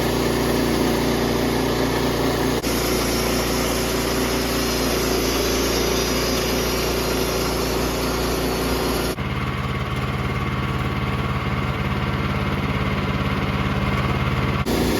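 Small gasoline engine of a portable bandsaw sawmill running steadily, heard in spliced clips. About nine seconds in, the sound cuts to a lower, smoother engine note, then cuts back again near the end.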